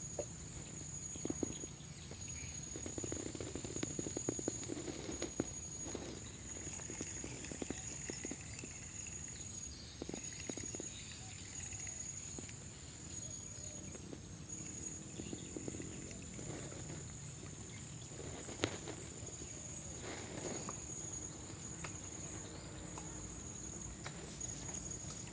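Steady high-pitched chorus of insects, with occasional soft knocks and clicks over it.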